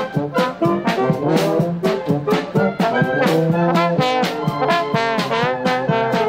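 Brass band with trombones playing a tune, the notes changing quickly.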